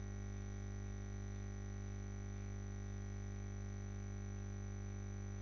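Steady electrical mains hum, a buzz with many overtones, with a faint high-pitched whine above it.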